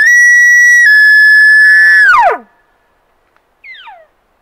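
Bull elk bugling: a loud whistle that climbs, is held high for about two seconds with a slight drop in pitch partway, then falls off sharply. A short falling squeal follows near the end.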